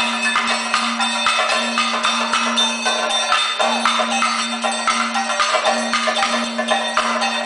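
Kathakali percussion accompaniment: fast, dense drumming with the ringing strikes of a chengila gong and cymbals, over a steady held drone that breaks off briefly a few times.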